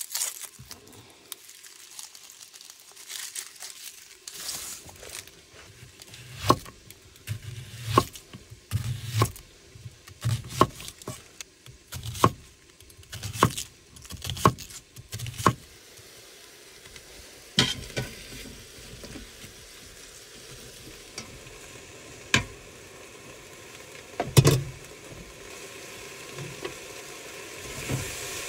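Cleaver slicing an onion on a wooden cutting board: a quick run of about a dozen sharp chops with dull thuds, then a few single chops. Near the end a steady sizzle rises from the pot as it is stirred.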